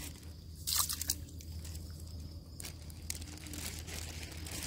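Crinkling and rustling of handled packaging in a few short bursts, the loudest about a second in and another past the middle, as kitchen scraps are tipped out into the water.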